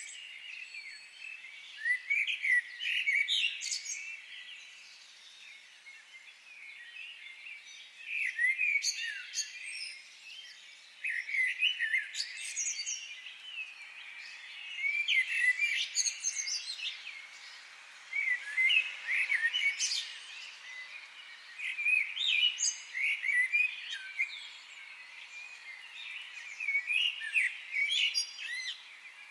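Wild birds singing in a forest, quick chirping phrases that come in bursts every few seconds over a faint steady background hiss.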